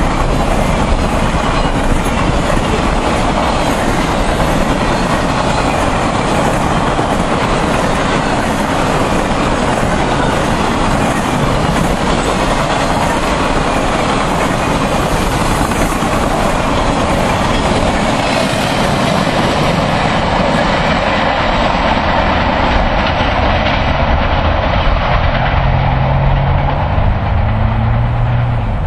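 Norfolk Southern Triple Crown RoadRailer trailers rolling past on their rail bogies, a steady loud rumble with wheel clatter. After about twenty seconds the sound grows duller, and a low hum comes in near the end.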